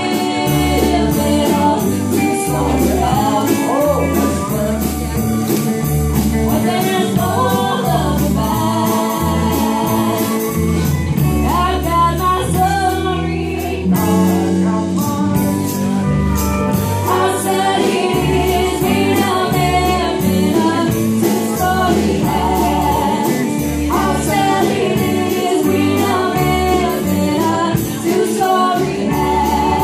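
Live country band playing with singing: vocals over pedal steel guitar, electric guitars and drums, with a steady beat.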